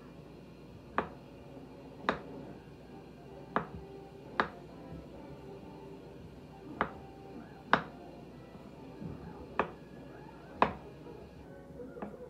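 Kitchen knife slicing strawberries on a wooden cutting board: about nine sharp knocks of the blade meeting the board, unevenly spaced, roughly a second apart.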